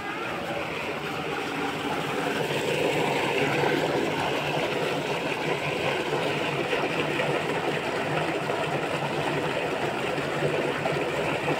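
Water gushing from a pipe into a concrete tank, a steady rushing and churning that grows louder about two seconds in, with a low steady hum underneath.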